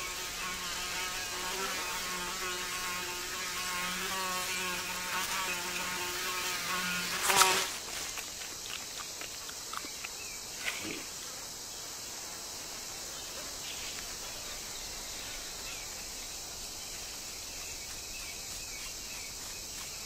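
A flying insect buzzing in a wavering drone, cut off about seven and a half seconds in by one sudden sharp snap, a chameleon's tongue strike catching the insect. Afterwards only a steady hiss of ambience remains, with a faint click or two.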